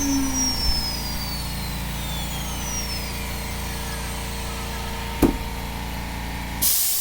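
ATC spindle of a small CNC router winding down after a cut, its high whine slowly falling in pitch over a steady machine hum. A sharp click about five seconds in, and a short loud hiss near the end.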